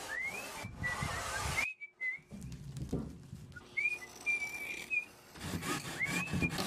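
A person whistling a tune in short notes that swoop up and then hold, over a rough rubbing and scraping like sanding or sawing. Both stop for a moment about two seconds in.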